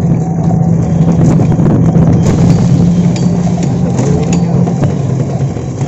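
A battery-powered e-rickshaw (toto) riding along, a steady low hum with a few light rattles.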